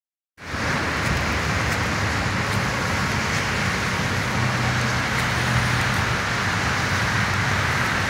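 Steady traffic noise: cars driving past on a wet, slushy road, a continuous tyre hiss over a low engine hum, beginning a moment in.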